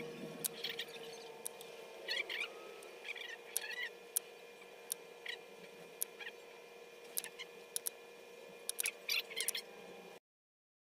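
Fine-tip paint applicator working on a wooden earring blank: scattered small clicks and a few short squeaky scratches over a faint steady hum. The sound cuts off abruptly a little before the end.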